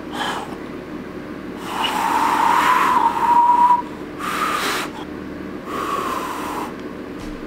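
A beginner's two-finger whistle attempts: a short puff, then three hard blows of air through the fingers. Each blow is mostly rushing air carrying a thin, wavering whistle tone that only partly catches. The longest lasts about two seconds, and the last falls slightly in pitch.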